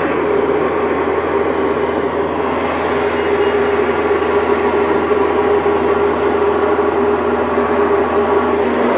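Single-engine propeller light aircraft in flight, its piston engine and propeller running with a steady drone, heard from inside the cabin.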